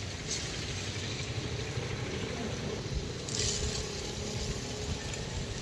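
Steady outdoor background noise: a low rumble with a faint distant engine hum in the middle, and brief hissing rushes just after the start and about halfway through.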